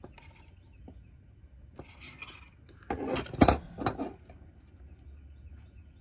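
Metal hand tools, a pair of pliers among them, handled and set down on a workbench: a short clatter of clinks and knocks about three seconds in, after a soft rustle.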